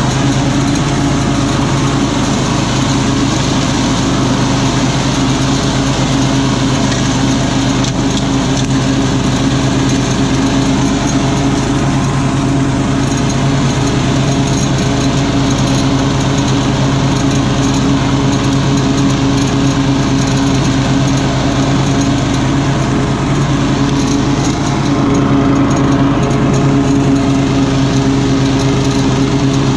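A 30-inch walk-behind lawn mower's engine running steadily while mowing and mulching grass and leaves, a little louder near the end.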